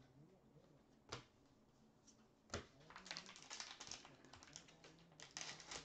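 Faint handling of trading cards and a plastic card-pack wrapper: two sharp clicks as the cards are flicked, then crinkling rustle of the wrapper from about three seconds in and again near the end.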